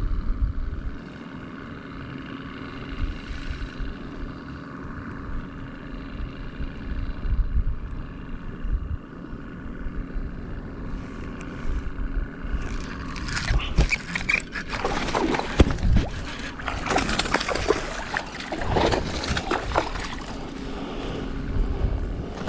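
Boat motor running steadily, then, about halfway through, louder irregular splashing and knocking noise takes over.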